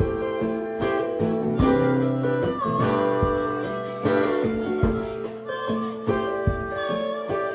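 Acoustic guitar strumming chords while a harmonica played into a microphone carries held melody notes over it.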